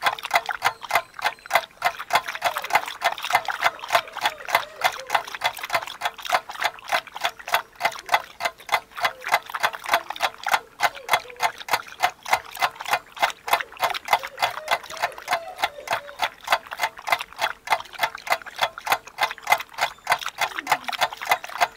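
Greyhound licking and smacking its mouth over and over, about four wet smacks a second, working sticky peanut butter off its tongue and palate.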